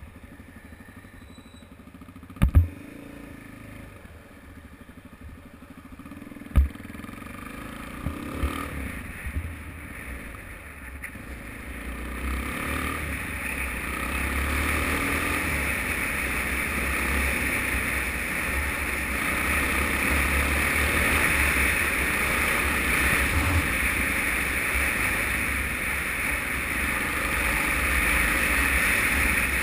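Suzuki DR-Z single-cylinder motorcycle engine ticking over and then pulling away and riding, heard from a helmet-mounted camera. Wind rush over the microphone builds from about twelve seconds in as speed rises. Two sharp knocks come a couple of seconds in and again about four seconds later.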